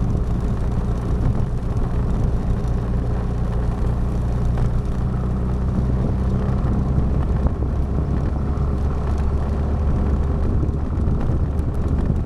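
Motor scooter's engine running steadily while riding, with road and wind noise.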